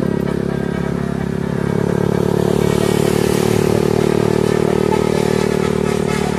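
A vehicle engine running steadily, its pitch rising slightly and growing louder about two seconds in.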